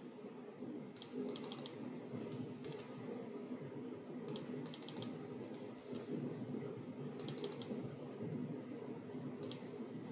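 Computer keyboard keys pressed in several short bursts of a few clicks each, over a steady low hum.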